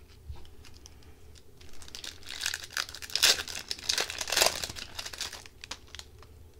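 Foil wrapper of an Upper Deck hockey card pack being torn open and crinkled by hand. There are a few light crackles at first, then a dense crinkling and tearing that is loudest in the middle and dies away about a second before the end.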